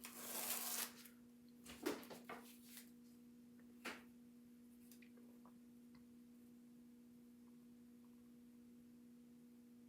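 A short rustle of craft materials being handled in the first second, then a few light taps and clicks, over a faint steady electrical-sounding hum; otherwise near silence.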